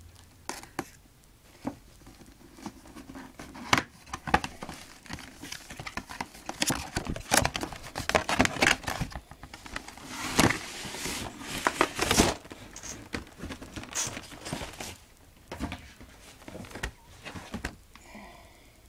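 Plastic packaging and cardboard being handled: irregular crinkling, rustling and scraping as a plastic blister tray is pulled out of a collectible figure box, busiest in the middle.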